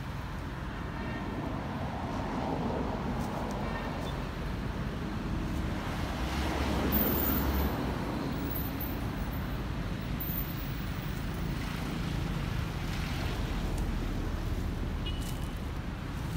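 Steady outdoor road noise, with a vehicle passing and growing louder about seven seconds in before fading.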